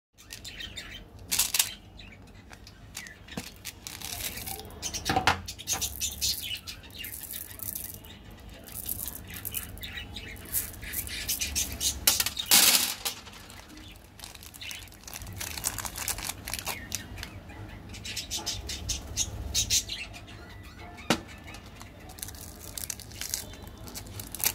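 Foil and plastic candy wrappers crinkling and rustling in the hands, coming and going in irregular bursts, with a few sharp clicks as small candy-coated chocolates are poured out and handled.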